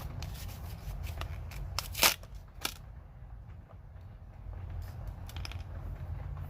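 Plastic packaging being pulled off and handled, crinkling and rustling, with a sharp snap about two seconds in and another shortly after.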